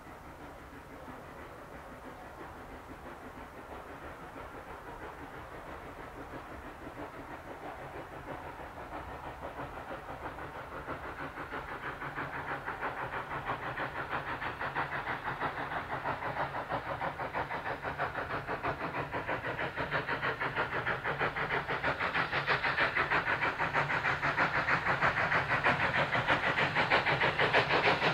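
Steam locomotive No. 65, an SECR O1 class 0-6-0, working hard up a gradient: an even rhythm of exhaust beats that grows steadily louder as it approaches.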